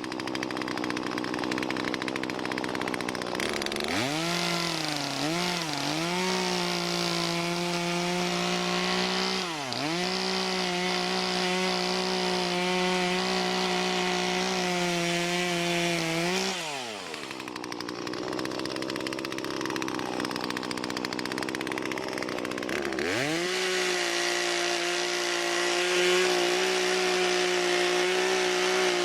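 Gas chainsaw run at full throttle, cutting fallen trees. It revs up a few seconds in and sags briefly, drops back to idle for several seconds, then revs up again.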